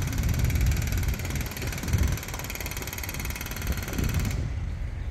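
Northern diesel multiple unit pulling away down the line, its engine running, under a gusty low rumble of wind on the microphone. A high hiss drops away about four seconds in.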